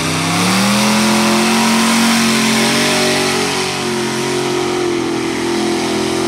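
Big-block Chevy V8 in a lifted mud truck revving up hard about a second in, then held at high revs as the truck runs through the mud pit on its 54-inch bogger tires.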